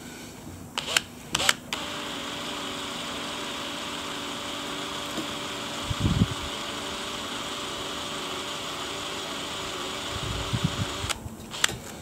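Handheld electric drill with a 3 mm bit running steadily as it drills out the head of a brass knife-pivot pin on a Victorinox 111mm pocket knife. A few clicks come as the bit is set at the start and lifted at the end, and there is one low knock midway.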